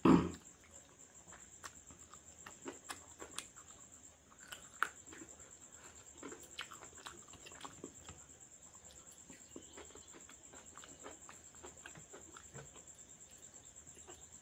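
Close-up eating sounds of a man eating rice and curry with his hand: a loud mouthful at the very start, then soft chewing, lip smacks and wet finger clicks scattered throughout, over a steady high-pitched whine.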